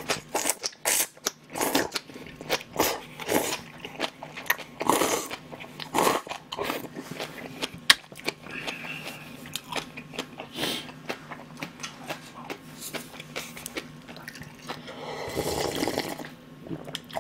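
Close-miked eating of instant cup noodles: slurping noodles, then steady chewing with many small wet mouth clicks, and a longer slurp of broth drunk from the cup near the end.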